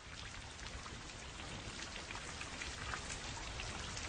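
Steady rain falling, a hiss with many individual drops ticking through it, slowly growing louder.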